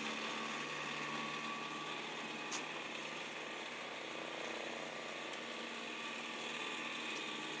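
Aircraft tow tractor running steadily with a light mechanical rattle while towing a UH-60L Black Hawk helicopter. One sharp click about two and a half seconds in.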